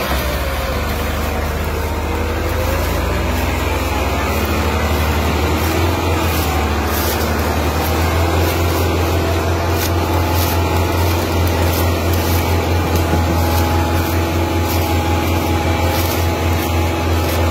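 Massey Ferguson 385 tractor's diesel engine running hard under heavy load, a loud steady low drone as it strains to haul an overloaded sugarcane trolley.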